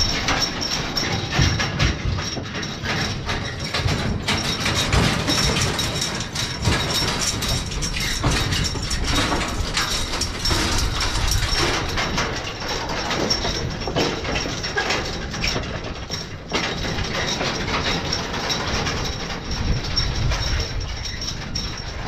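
Empty hay wagon with a steel-framed rack and wooden floor rattling and clattering steadily as a draft-horse team pulls it over a rough farm track and field.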